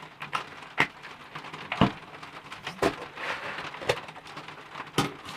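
Slime being pulled and squeezed by hand, giving sharp wet clicks and pops about once a second over a faint crackling.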